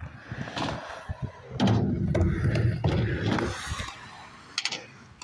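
Skateboard rolling and clattering on a sheet-metal skatepark ramp, with a loud rumble in the middle and several sharp clacks of the board.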